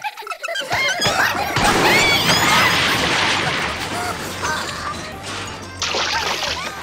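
Cartoon slapstick crash effect, a loud noisy burst lasting a few seconds as the characters tumble into a pond, with squeaky cartoon voices over background music.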